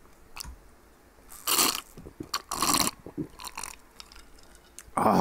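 A person drinking a soju-and-lemonade highball on ice from a glass: two loud gulping swallows with small clicks of ice and glass between them, then a short vocal exhale near the end.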